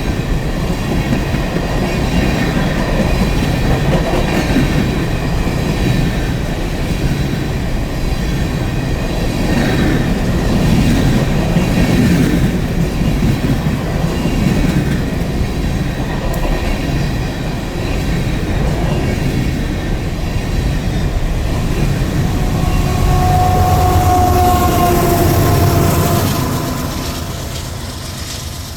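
Empty coal train's hopper cars rolling past, wheels clicking over rail joints with some wheel squeal. A louder stretch with a clear squeal comes late, then the sound fades as the train moves off.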